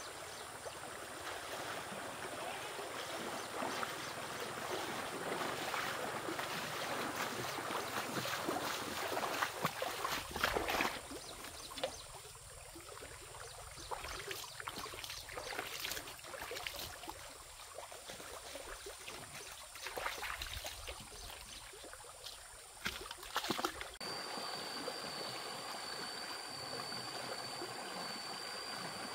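Stream water rushing and splashing, heaviest in the first half, then quieter with scattered sharp splashes and knocks.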